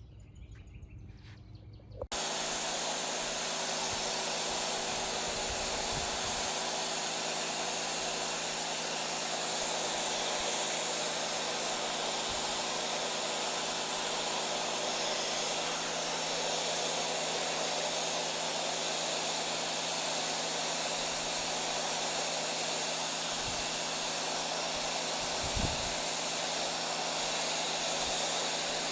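Pressure washer spraying: the jet cuts in suddenly about two seconds in and then runs as a steady loud hiss, with the machine's motor and pump humming steadily underneath.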